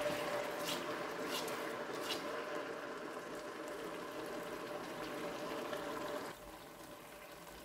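Blended pepper and onion paste frying and bubbling in palm oil in a stainless steel pot, stirred with a wooden spoon, with a few light taps of the spoon. The sound drops away abruptly about six seconds in.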